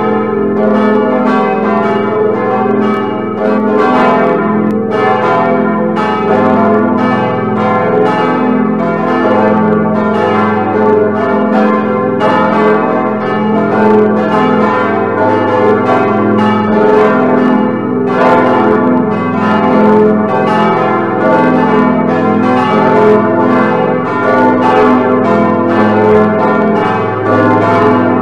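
Full peal of several church bells swinging together, their strikes overlapping in a continuous, unbroken clangour, played from a computer bell simulator.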